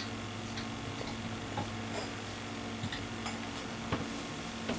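Steady electrical hum with a few faint, irregularly spaced ticks and light taps.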